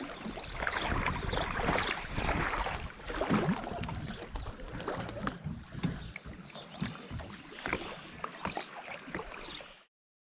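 Sea-Doo personal watercraft out on the water: a rushing mix of wind, water spray and splashes over a low rumble, cutting off abruptly just before the end.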